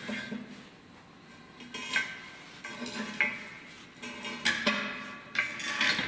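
Steel hydraulic cylinder tube clanking against its pipe stand as it is handled and turned: several separate metallic knocks, each with a short ring.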